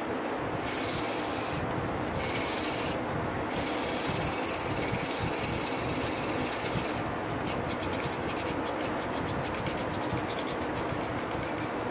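Folding knife blade being sharpened by hand, steel rubbing against an abrasive in a steady scrape that turns into quick, even strokes, several a second, about seven seconds in, as a nick in the edge is worked out.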